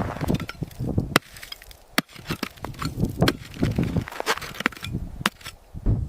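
A series of irregular sharp knocks and cracks over duller low thumps, the strongest single crack about a second in.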